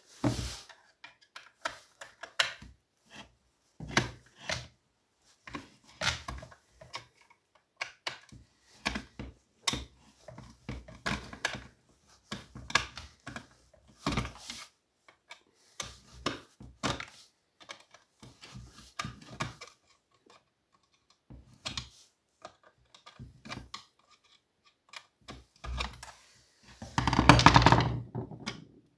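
Irregular clicks, taps and knocks of a screwdriver and hands working on a chainsaw's plastic handle and housing while it is unscrewed. Near the end comes a louder scraping clatter lasting about a second and a half as the handle is pulled loose.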